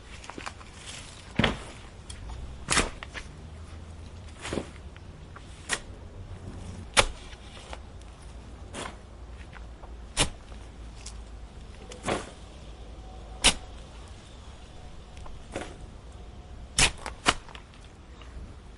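A garden hand tool at work: about a dozen sharp, short snaps or strikes at irregular gaps of one to two seconds, over a low steady outdoor rumble.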